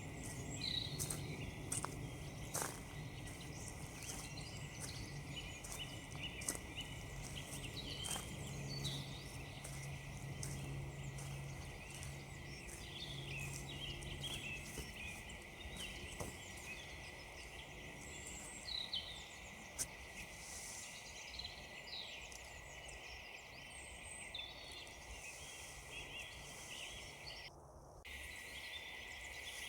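Small woodland birds chirping and calling over footsteps crunching on frozen ground, with a faint low drone in the first half.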